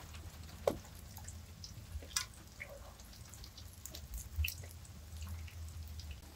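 Scattered water drips and light taps, as of rain dripping, over a low steady hum.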